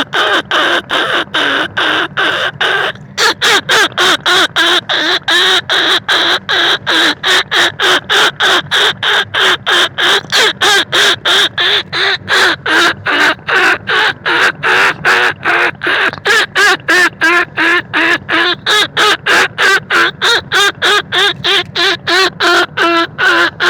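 Rat-calling lure sound for bandicoot rats and field rats: short squeaks repeated rapidly and evenly, about three a second, with a brief break about three seconds in.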